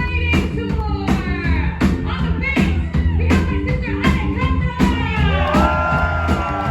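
Live rock band playing loudly: drums keep a steady beat under bass and distorted guitar, with a female lead vocal that holds a long note near the end.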